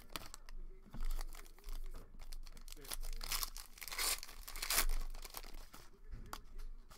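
Foil trading-card pack wrappers being torn open and crinkled by hand, in short irregular rustling bursts.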